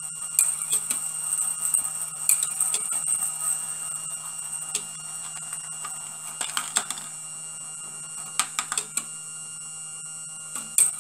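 Small battery-powered electric motor whining steadily as it drives a brass gear train, with irregular sharp metallic clicks of a steel ball and the mechanism on the brass wire track, a few of them bunched together past the middle and near the end.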